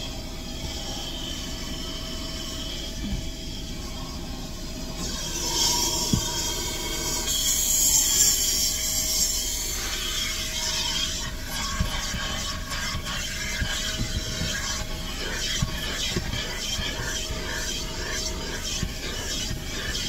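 Rubbing and scraping on the car's interior surfaces during cleaning, with a faint steady hum underneath; the rubbing is louder from about five to ten seconds in.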